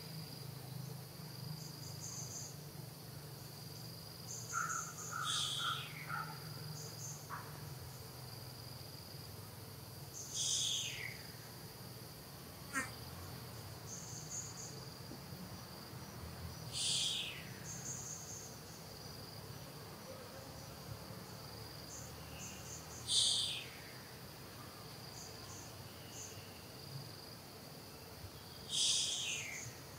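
Forest insect chorus: a steady high-pitched drone with scattered short chirps. A louder call that falls in pitch over about a second repeats roughly every six seconds, five times.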